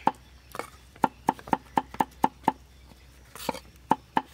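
Knife chopping cucumber on a thick wooden chopping block: a run of sharp knocks at about four a second, each blade stroke striking the wood. There is a pause with a short rustling noise, then the chopping picks up again near the end.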